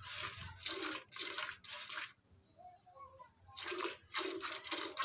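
Hand milking a Sahiwal cross cow: jets of milk squirting from the teat into a steel bucket, about two squirts a second, with a pause of about a second in the middle. The teats are being test-milked one by one to show that each gives a good stream.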